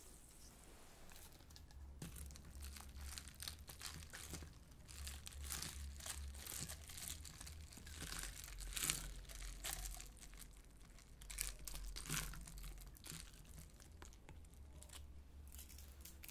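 A straw stirring ice, perilla leaves and lemon slices in a tall glass of fizzy soda: irregular crackling clicks and clinks that ease off a few seconds before the end.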